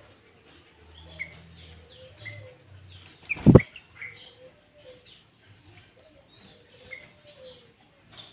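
Sooty-headed bulbul chirping in a busy series of short, falling notes. A loud thump about three and a half seconds in is the loudest sound.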